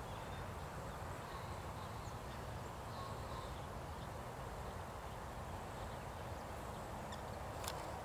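Outdoor background with a steady low hum and a few faint, distant bird chirps, then a brief run of sharp clicks near the end.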